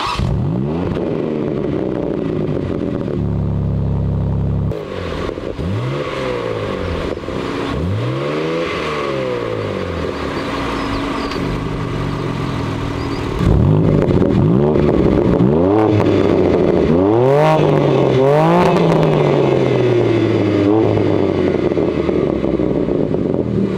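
BMW M3 Touring's twin-turbo straight-six revved through its DD Customs aftermarket exhaust: a string of throttle blips that rise and fall in pitch, with a brief steady hold at about three seconds. It gets louder about halfway through, with several quick blips in a row.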